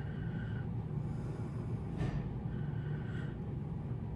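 Steady low rumble of room background noise, with a faint scrape about two seconds in from a pottery triangle tool cutting a wedge out of the rim of a clay cylinder.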